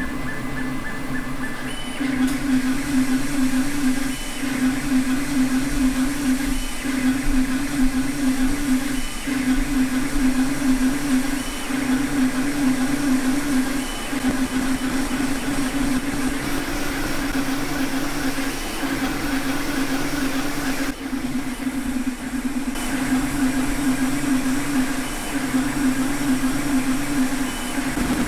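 Creality K1C 3D printer printing at high speed. Its motors hum and warble, shifting pitch constantly as the printhead darts back and forth, over a steady hiss.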